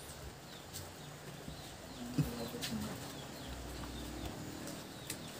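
Faint low bird calls over quiet room sound, with a few small clicks and a soft knock about two seconds in.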